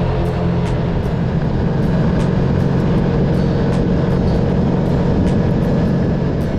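Side-by-side UTV engine running at a steady speed while the machine is driven, with frequent small clicks and knocks from the ride.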